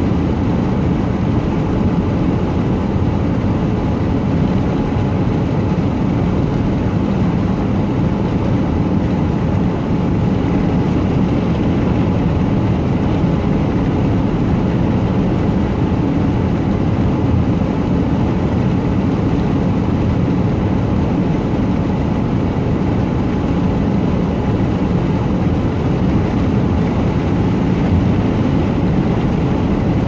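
Car travelling at steady highway speed: constant tyre and road noise with the engine running underneath, heaviest in the low end and unchanging throughout.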